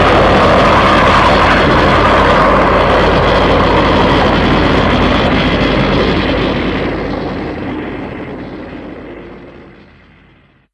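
Sound effect of a giant robot's jet thrusters: a loud, steady jet-engine-like rush with a low hum beneath, holding for several seconds and then slowly fading out to silence near the end.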